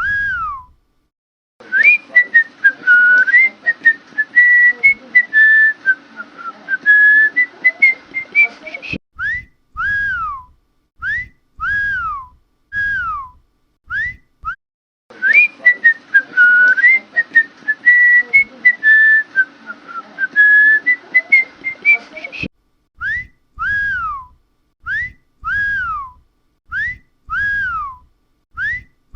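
Whistled dog-calling signal: repeated pairs of notes, a short upward chirp then a longer note that rises and falls, about one pair a second. Twice it gives way to several seconds of continuous warbling whistle over a low hum, which cuts off suddenly.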